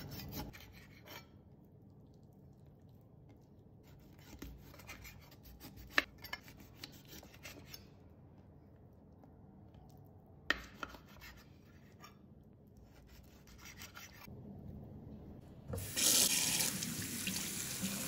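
Knife cutting through raw chicken wings at the joints on a cutting board: quiet scraping strokes, with two sharp knocks of the blade on the board. About sixteen seconds in, tap water starts running hard into a sink over a colander of wing pieces, much louder than the cutting.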